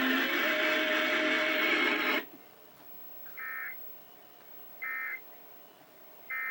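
Loud, dense television audio cuts off suddenly about two seconds in. It is followed by three short, high electronic data bursts about a second and a half apart: the Emergency Alert System's end-of-message code, which closes the alert.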